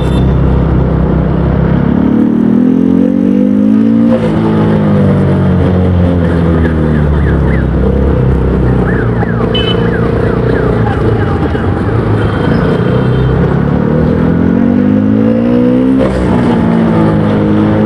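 KTM Duke 200's single-cylinder engine and exhaust running, revved up twice: the pitch climbs over about two seconds a couple of seconds in, falls back to a steady run, then climbs again over the last few seconds before dropping back.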